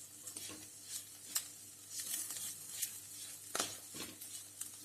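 Onion and spice masala with curry leaves frying gently in coconut oil, with a soft sizzle and a spatula stirring and scraping the pan a few times.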